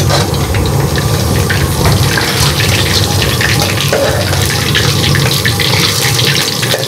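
Dhoka, cakes of chana and mung dal, frying in hot oil in a kadai: a steady sizzle thick with fine crackling.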